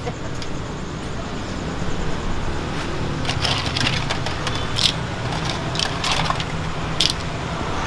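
Clam shells clicking and clattering against stainless steel trays and a wire-mesh strainer as they are handled, several sharp clicks in the middle, over a steady low rumble.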